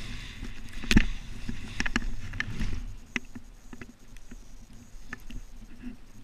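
A snowboard sliding through powder snow and a wipeout: a sharp knock about a second in, then a couple of seconds of scraping, brushing snow with several more knocks. After that it turns quieter, with small clicks and rustles as the rider moves in the snow, picked up by the camera on its selfie pole.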